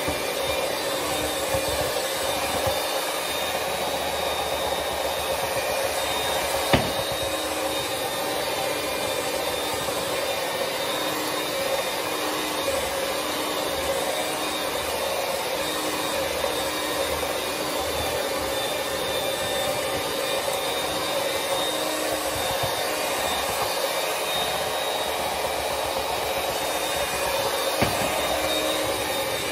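Electric hand mixer running steadily, its wire beaters whirring through cake batter in a glass bowl. A sharp knock comes about a quarter of the way through and another near the end.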